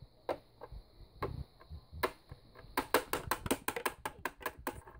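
Light clicks and taps of handling noise, a few at first, then a quick run of them from about three seconds in that stops shortly before the end.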